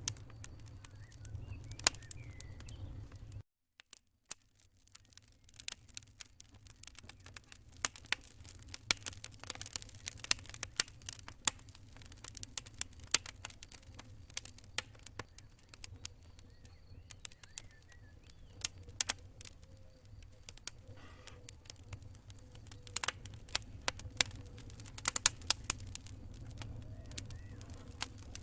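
Wood fire in a fireplace crackling: dense, irregular pops and snaps over a steady low rumble. The sound cuts out to silence for about half a second around three and a half seconds in, then resumes.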